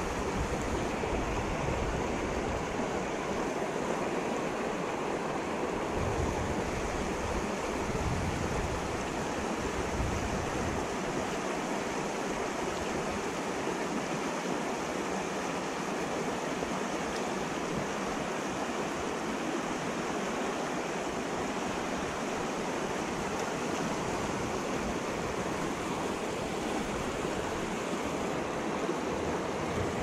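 Creek rapids rushing steadily over rocks and boulders.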